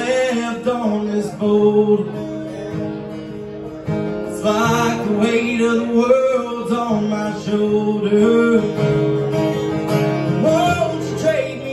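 Acoustic guitar strummed and picked in a live solo performance, with a man singing into the microphone over it.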